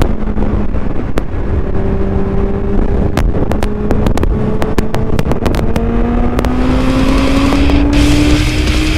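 Kawasaki Z750R inline-four motorcycle engine pulling hard, heard from the rider's microphone: the engine note holds for a few seconds, then climbs steadily as the revs rise. Wind rushes on the microphone, growing stronger near the end, and the microphone crackles with sharp clicks.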